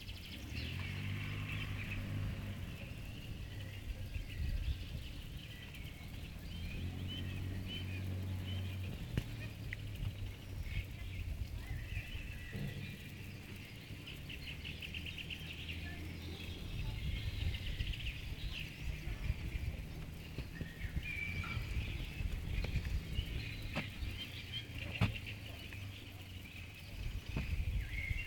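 Many small birds chirping and trilling at dusk, calls overlapping throughout. A low, steady hum comes and goes under them near the start and again after about seven seconds, and a few sharp clicks sound near the end.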